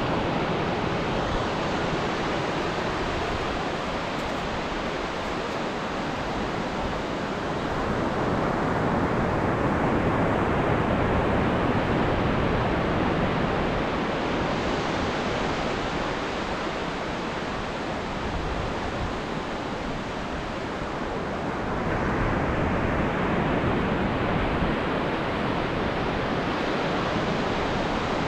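Ocean surf: waves breaking and washing ashore as a continuous rush that swells and fades slowly, with a fresh wave breaking about three quarters of the way through.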